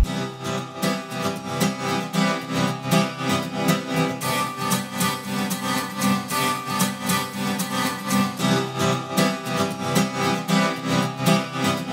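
Background music with plucked-string instruments over an even, pulsing beat.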